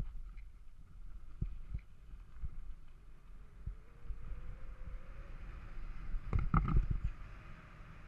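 Mountain bike rolling over a bumpy dirt trail: tyre rush, wind on the microphone and repeated low thumps from the bumps, with a burst of knocks and rattles about six and a half seconds in.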